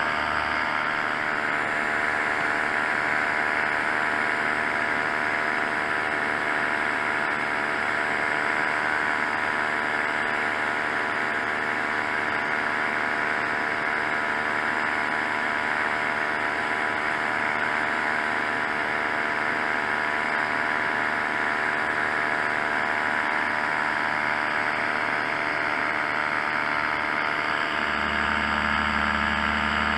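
Paramotor engine and propeller running steadily in flight, heard from on board with a constant airflow hiss. A deeper low hum joins near the end.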